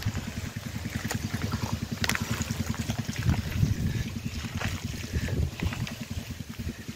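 Wet river mud squelching and sloshing as bare hands dig and scoop it, with scattered short wet smacks. Underneath runs a steady, rapid low throb, like a distant motor.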